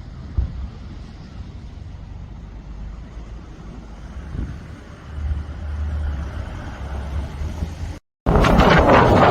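Wind rumbling on the microphone over a soft rush of sea at a beach. Just after eight seconds the sound cuts out briefly, then comes back as a much louder, full rushing of wind and surf.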